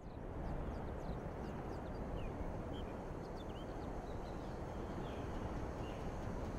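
Outdoor ambience: scattered small bird chirps and whistles over a steady low rushing noise.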